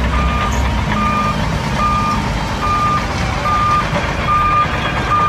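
A dump truck's back-up alarm beeping steadily, one short single-pitched beep about once a second, over the truck's diesel engine running as its raised body tips out a load of sand.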